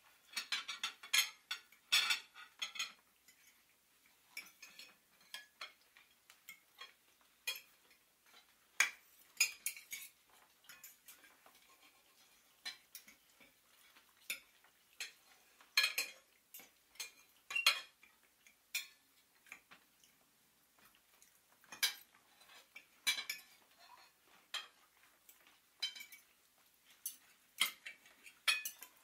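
Irregular light clicks and clinks, sometimes a few in quick succession and sometimes a second or more apart, like small hard objects tapping together.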